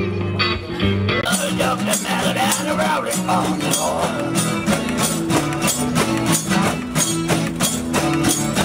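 Music: electric guitar band music stops about a second in, and a one-man street band takes over, a strummed guitar with a steady rattling, jingling percussion beat.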